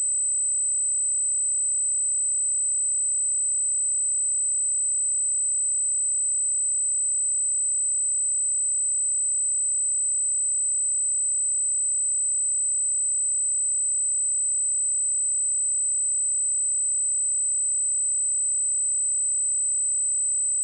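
Pure 8065 Hz sine-wave test tone, a single steady high-pitched whistle held at constant level without change.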